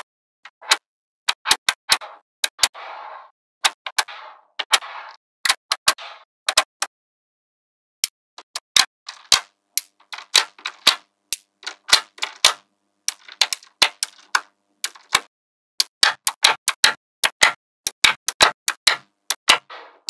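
Small magnetic balls clicking sharply as they snap together, in irregular runs of clicks. There are short rattling stretches in the first few seconds and a pause of about a second around seven seconds in, after which the clicks come thicker.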